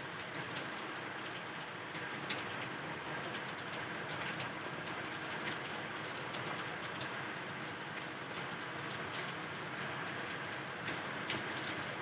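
Steady rain falling: an even hiss with many scattered sharper drop ticks.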